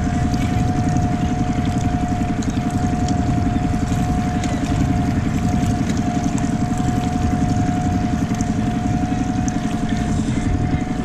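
Honda four-stroke outboard motor on a small inflatable boat running steadily at low speed: an even, fast low chugging with a constant whine over it.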